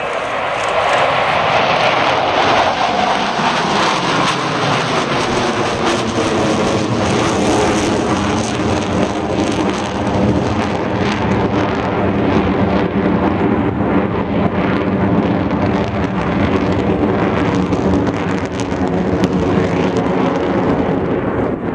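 Four F/A-18 Hornet jets flying a diamond-formation loop overhead: a loud, continuous jet-engine roar with a steady drone, swelling in the first second and then holding level.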